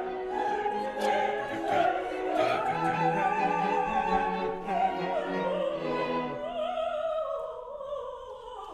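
Orchestra playing a slow classical passage: a wavering vibrato melody over sustained chords. The low parts drop out about six seconds in, and the music fades near the end.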